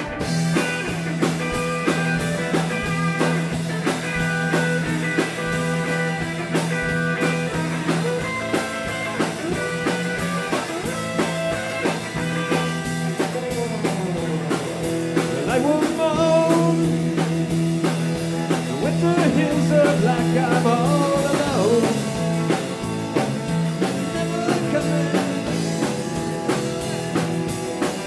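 Live rock band playing: electric guitars, electric bass and drum kit, with a steady bass note under it and a lead line that bends in pitch through the middle.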